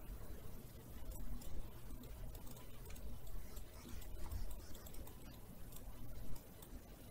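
Faint, irregular clicks of a computer mouse over a low room hum.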